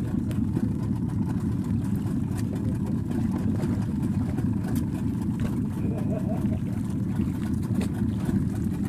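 Outboard motor running steadily at low speed, with an even low drone that holds without change.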